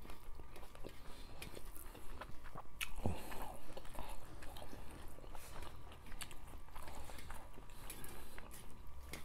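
Two people chewing a meal of rice and fish soup eaten by hand, with frequent small, irregular mouth clicks.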